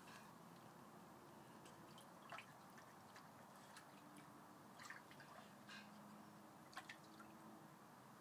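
Faint, scattered small splashes and drips, a handful in all, as a Border Terrier paws and noses a ball in shallow pool water; otherwise near silence.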